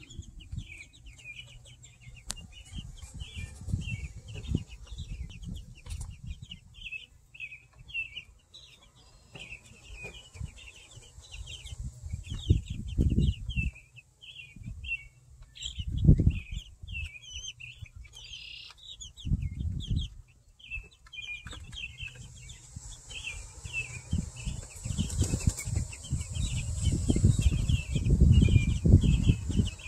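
A group of young chicks peeping continuously, several short high peeps a second. Bursts of low rumble come and go on the microphone and are loudest near the end.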